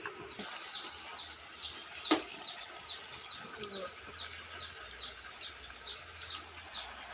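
A small bird chirping over and over, about three short falling chirps a second. A single sharp knock comes about two seconds in.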